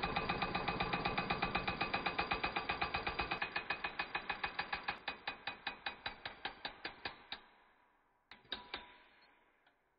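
Pneumatic air hammer with a chisel bit rattling against the old wrist pin bushing in a Caterpillar C12 connecting rod, driving the bushing out of the small-end bore. The blows come in a fast stream, then slow and space out and stop about seven seconds in, followed by two short bursts.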